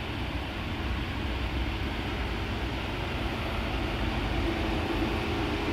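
2018 Mitsubishi Outlander's engine idling, a steady low hum.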